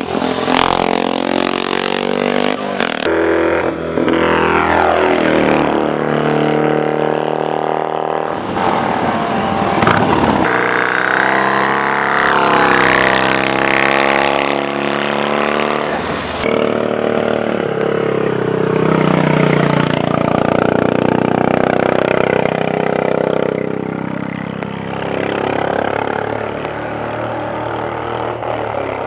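Racing motorcycle engines at high revs, the pitch climbing and dropping again and again with throttle and gear changes.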